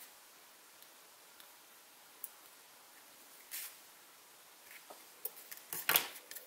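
Light handling of paper craft supplies on a table: a few scattered soft clicks and a brief swish, then a busier cluster of rustles and clicks near the end.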